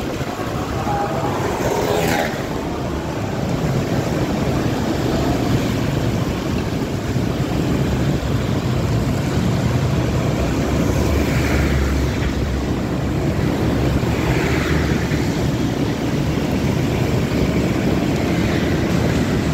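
Riding a Honda Beat scooter through traffic on a rain-wet road: the scooter running at a steady cruise under heavy, even wind rumble on the phone's microphone, with other motorcycles and cars around.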